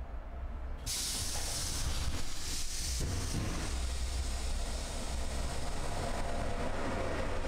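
Roma–Giardinetti narrow-gauge train with a steady low rumble, broken about a second in by a sudden, loud hiss of compressed air from its pneumatic system. The hiss carries on into the train's steady running noise.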